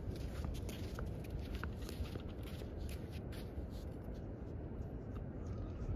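Steady low wind rumble on the microphone, with scattered light scuffs and clicks as a man steps over to a surf-fishing rod in its holder and handles it.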